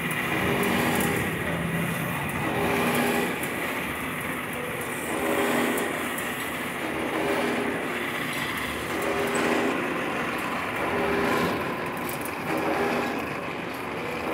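Wood lathe running with a wooden spindle spinning while a hand burnishes it with a handful of wood shavings, giving a steady rubbing hiss. The machine's hum swells and fades about every one and a half to two seconds.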